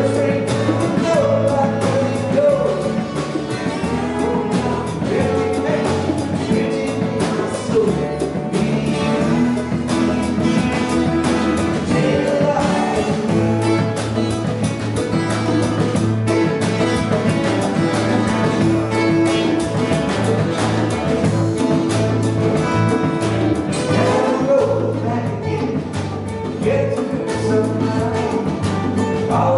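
Small live band playing a steady groove: acoustic guitars strummed over electric bass, a drum kit and hand-played congas.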